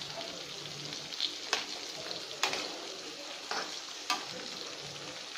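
Brinjal (eggplant) slices frying in coconut oil with a steady sizzle, stirred with a slotted metal spatula that scrapes and taps the pan four times.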